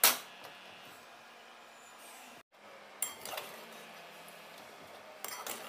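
Metal spatula clanking and scraping against a metal pan while stirring sticky chopped dates in ghee: one sharp clank at the start, then scattered lighter clinks about three seconds in and again near the end.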